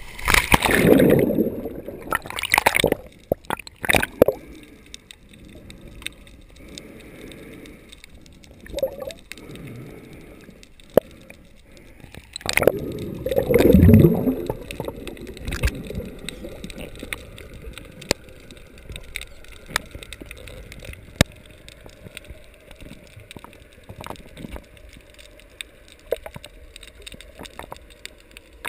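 Camera housing plunging into seawater: splashes and bubbling gurgles, with a second loud rush of water and bubbles about thirteen seconds in. Between and after, underwater there is a low hiss dotted with scattered sharp clicks.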